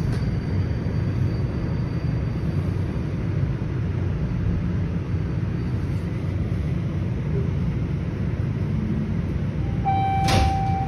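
Toronto Rocket subway train standing at a station platform, its equipment giving a steady low rumble and hum. Near the end a single steady electronic tone sounds, together with a sharp click.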